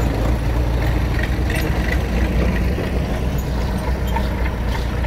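Belarus 825 tractor's four-cylinder diesel engine running steadily with a low drone as the tractor pulls its trailer away.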